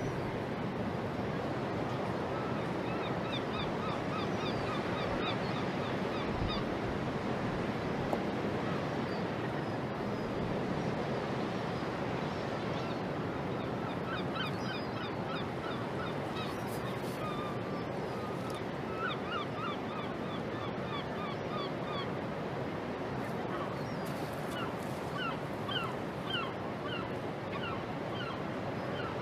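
Gulls calling in repeated runs of short, rising, honking cries over a steady waterfront background of water and wind noise.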